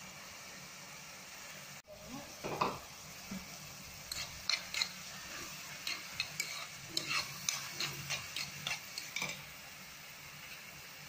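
Chopped onions frying in oil in a pan, sizzling steadily. A spatula scrapes and clicks against the pan in quick, repeated strokes as the onions are stirred, most busily through the second half.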